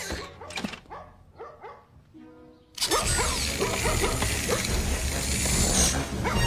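Cartoon bulldog barking over background music; the sound gets much louder about three seconds in.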